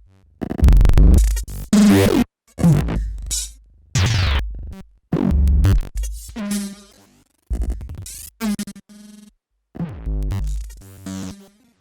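Glitchy electronic music: choppy synthesizer and drum-machine stabs that cut off abruptly into short silences, several with falling pitch sweeps.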